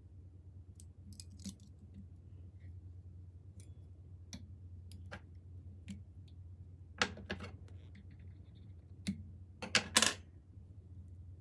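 Small metal clicks and snips of fly-tying hackle pliers and scissors at the vise as the hackle feather is tied off and trimmed: scattered single clicks, the loudest in a quick cluster near the end. A steady low hum runs underneath.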